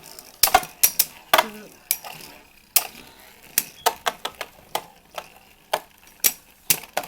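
Two Beyblade Burst spinning tops, Mirage Fafnir and Wizard Fafnir, spinning in a plastic stadium and clashing with sharp clicks at irregular intervals, about one or two a second.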